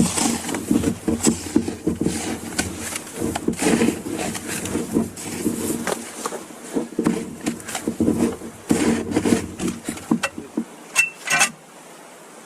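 Heavy-duty tarps rustling and crinkling as they are handled, with irregular clicks and knocks, quietening near the end.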